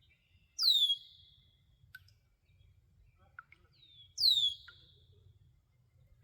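A bird calling twice, about three and a half seconds apart: each call a sharp downslurred whistle that levels off into a short buzzy trail.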